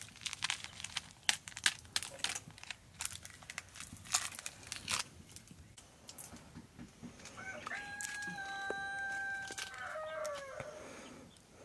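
Crisp crackling and snapping for the first few seconds, then a rooster crows once: a long held call that falls away at the end.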